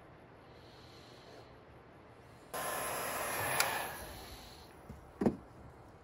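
Handling noise from a plastic coffee-maker body being moved about: a sudden scraping rustle lasting about a second and a half, with a click in the middle, fading out, then a single sharp knock near the end.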